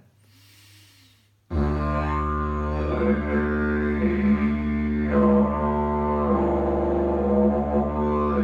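Didgeridoo drone starting suddenly about a second and a half in, held steady on one low note, with vowel sounds toned through it that shift the overtones up and down several times. It is played with the cheeks pulled in, which makes the harmonics on the vowels a lot richer.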